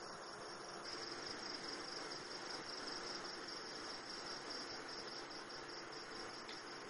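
Faint, steady, high-pitched insect trill, pulsing evenly without pause, over a low background hiss.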